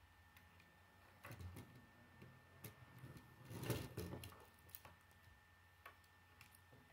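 Faint clicking and rattling of K'nex plastic rods and connectors as a built car frame is handled and turned over on a wooden table, with the loudest clatter about three and a half seconds in.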